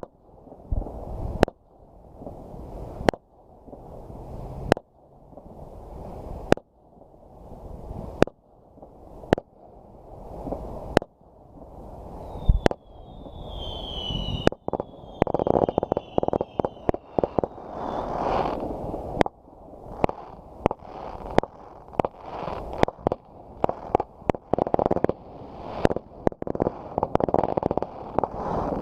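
Fireworks going off in a long series of sharp bangs, about one every second and a half at first, then coming much faster and closer together in the second half. Around the middle a few high whistles fall in pitch.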